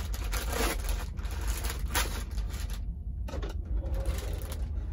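Plastic bag of vegetable medley crinkling as it is handled and opened by hand, over a steady low rumble.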